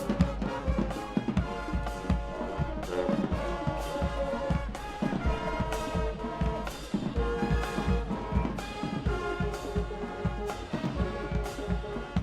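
HBCU-style marching band playing: loud brass chords from trombones and trumpets over a steady marching drum beat.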